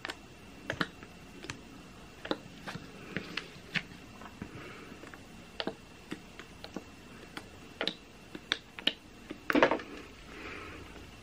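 Plastic squeeze tube of Revlon BB cream being squeezed, giving irregular sharp clicks and small squelching spurts, with a louder spurt about nine and a half seconds in. The product has separated, so air and thin watery oil sputter from the nozzle, which the owner takes for a bad batch.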